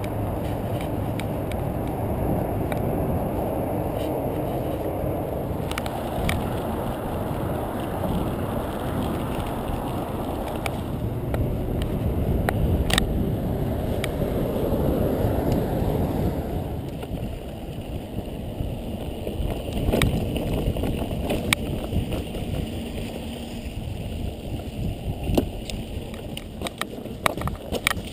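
Mountain bike riding with the camera on the bike: a steady rush of wind on the microphone and tyre rumble, which drops about sixteen seconds in to quieter rolling with frequent rattles and clicks over rougher ground.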